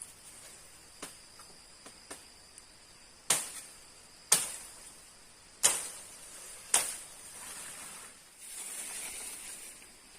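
Steady high insect chirring, with four loud sharp knocks a little over a second apart in the middle, then a few seconds of rustling near the end.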